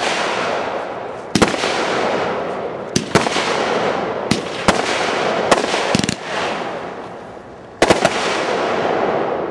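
Consumer aerial fireworks going off: about eight or nine sharp bangs at irregular spacing, with a hissing, crackling rush between them. The hiss fades into a short lull shortly before the end, then two bangs come close together.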